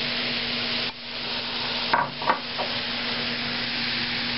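Baking soda and vinegar fizzing in a plastic cup as the foam bubbles up and spills over: a steady hiss, with two short sharp sounds about two seconds in.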